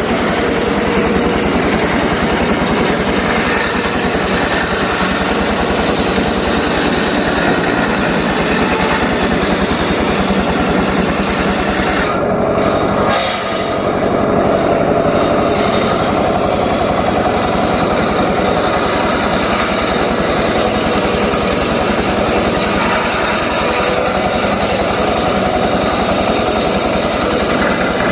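A power saw's small engine running steadily and loudly, with a brief drop in level about halfway through.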